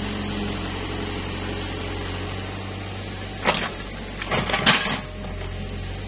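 Mini excavator's diesel engine running steadily, with a few sharp knocks about three and a half seconds in and twice more a second later as the bucket works the trench.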